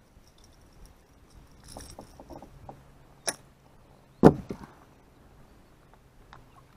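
Knocks and clicks from gear being handled in a fishing boat: a few soft clicks, a sharp click, then a louder knock about a second later, over a faint steady hum.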